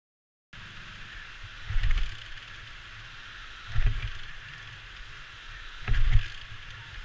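Honda XL500S single-cylinder four-stroke engine running at low speed on a rough dirt trail, heard through a helmet camera, starting about half a second in. A loud low surge or thump comes about every two seconds, three times.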